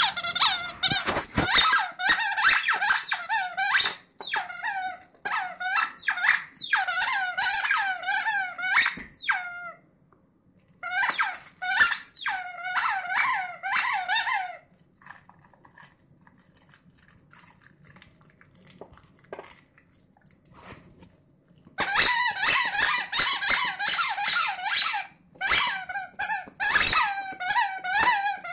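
Squeaker in a plush dog toy squeaking over and over as a dog chews it, in quick runs of squeaks. The squeaking stops for several seconds in the middle, then starts again.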